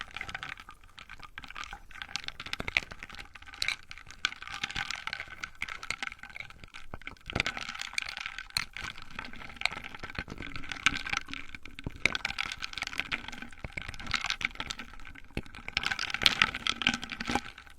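ASMR tapping: rapid, dense light taps and clicks on the hard surfaces of a refrigerator and the things in it, going on without a pause.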